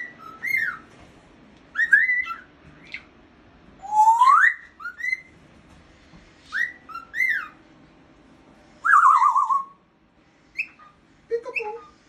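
Cockatiel whistling its song: a string of short whistled phrases that glide up and down, with a long rising whistle about four seconds in and a warbling falling whistle about nine seconds in.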